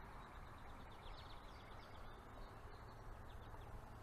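Faint outdoor background with a small bird's rapid, high-pitched chirping trill.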